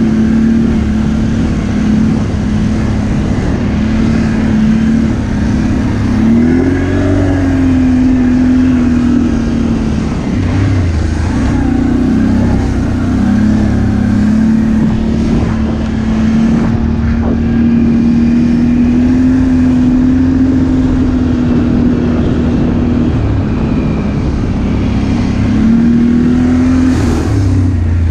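ATV engine running at a steady cruising pace, its note held level for long stretches and rising and dipping a few times as the throttle is opened and eased.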